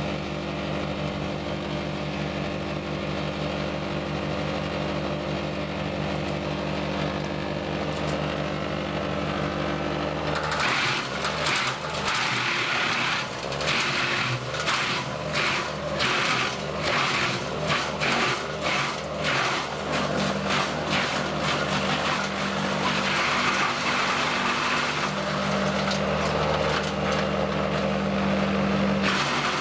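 A tractor-mounted, PTO-driven Jansen BX-62RS wood chipper runs empty at first, with the John Deere tractor's engine holding a steady note. About a third of the way in, a conifer tree is fed in and the chipper crunches through its trunk and branches in a rapid, irregular string of cracks, while the engine note drops under the load. Later it settles into a steadier grinding roar as the chips blow out.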